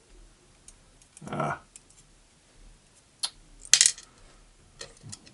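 Small metal lock parts, the pins and springs from the disassembled pin tumbler lock, clinking sharply against a hard surface several times, loudest a little past the middle. A short murmur of voice comes early on.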